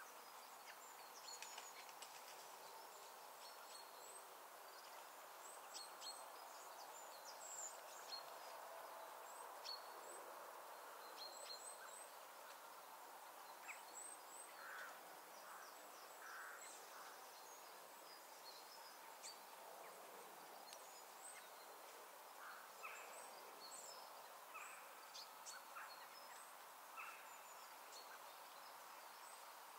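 Faint open-countryside ambience: many short, high bird chirps and calls scattered throughout over a soft, steady background hush.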